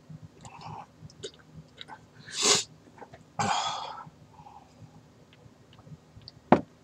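A man's two harsh coughs, the first short and loud and the second trailing off, from a throat burning after eating a scorpion pepper. A single sharp click comes near the end.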